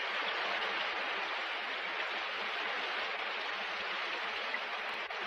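Heavy rain falling, a steady even hiss of water.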